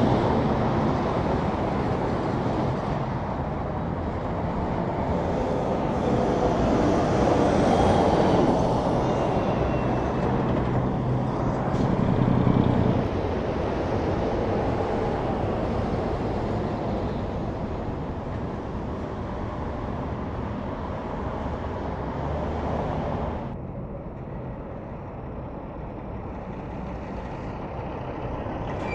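Big rigs passing on the highway: diesel engine and tyre roar that swells as the trucks go by, loudest about eight and twelve seconds in, then drops off suddenly near the end.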